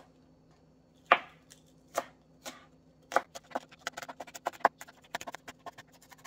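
Kitchen knife slicing green onions on a plastic cutting board. A few separate knife strikes on the board come first, then quick, even chopping from about three seconds in, roughly five strikes a second.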